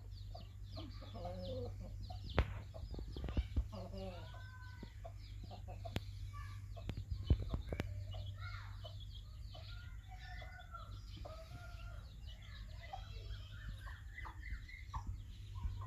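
Aseel chickens clucking in low calls while small chicks peep rapidly throughout, with a few sharp knocks.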